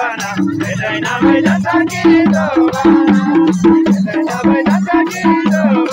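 Nepali lok dohori folk music: a singer's wavering melody over a fast, steady percussion beat with repeating low pitched drum notes.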